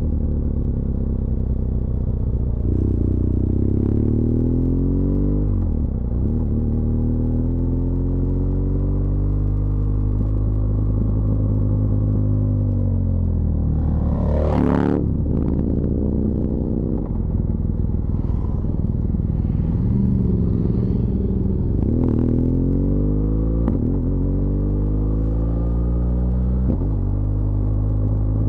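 BMW R1200GS LC Adventure's boxer-twin engine running steadily while riding downhill. Its pitch falls and rises several times as the revs change, dipping sharply about six seconds in and again about halfway through. A brief rush of noise comes about halfway through.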